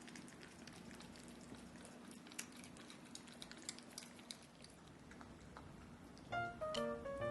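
Exotic shorthair cat licking Churu treat paste: faint, scattered small wet clicks over a steady low room hum. Background music with plucked notes comes back in about six seconds in.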